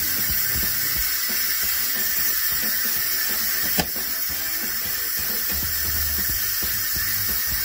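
Instant Pot electric pressure cooker venting steam through its release valve during a quick release, depressurising after pressure cooking: a steady high hiss, with a single sharp click about four seconds in.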